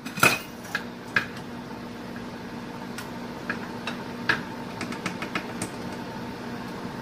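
Blended tomato-and-pepper stew cooking in a pot, giving a scatter of sharp pops and clicks, the loudest just after the start. A steady low hum runs underneath.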